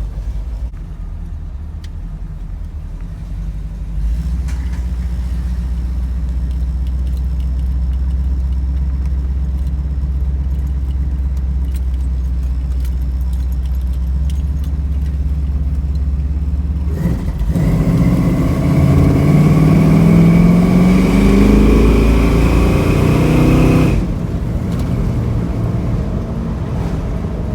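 Vehicle engine running steadily, then accelerating with a rising pitch for several seconds before the revs drop suddenly near the end.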